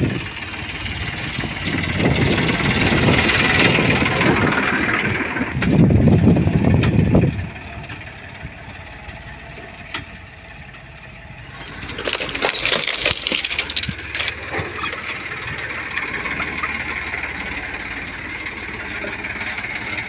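Tractor engine running as it hauls a loaded trolley. Loud for the first seven seconds or so, then quieter and steady, with a short burst of noise about twelve seconds in.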